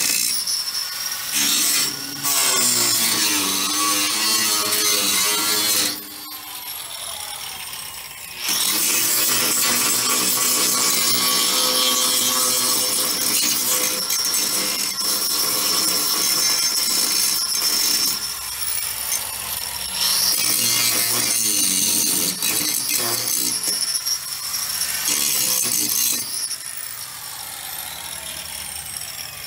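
Angle grinder grinding the steel RV crossmember at its old welds, cleaning the metal down to bare steel to prepare it for rewelding. It runs in long loaded passes with a high whine, easing off to a lighter sound about six seconds in and in a few shorter stretches later on.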